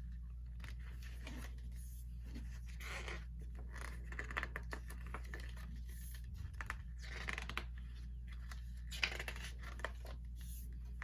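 Paper and card rustling and scraping in irregular bursts, with a few light clicks, as the printed inclusions are slid out of a K-pop Digipack album and handled.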